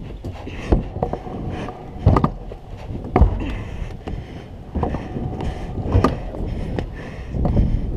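Stunt scooter riding a skatepark ramp: wheels rolling with a low rumble, and about six sharp clacks and thuds as the wheels and deck hit the metal coping and the ramp, the loudest about two and three seconds in.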